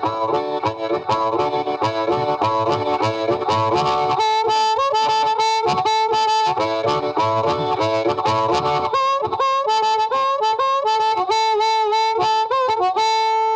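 Blues harmonica music: a harmonica plays quick bending runs over a steady rhythmic backing, then settles into one long held chord near the end.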